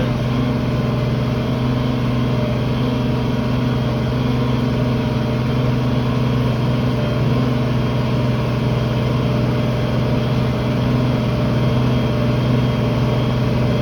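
Tractor engine running steadily while pulling a field cultivator, heard from inside the cab, with the cab air conditioner blowing over it.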